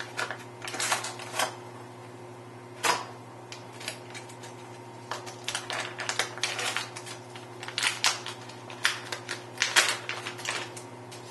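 Foil pouch of a Fujifilm FP-100C instant pack film crinkling and crackling as it is handled and opened by hand, in irregular sharp bursts, busiest in the second half.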